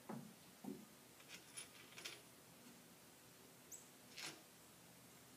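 Near silence broken by a few faint, short clicks and scrapes, the loudest about four seconds in: hands working the saddle hardware on a kayak rack's crossbar.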